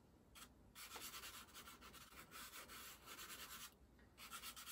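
Faint soft pastel stick scratching across paper in quick, repeated back-and-forth strokes, with short pauses near the start and about four seconds in.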